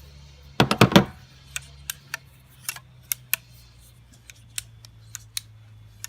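Metal clanks, then a string of sharp, irregular clicks from a sharpened cutting tool being worked open and shut, its blades and freshly adjusted pivot clicking.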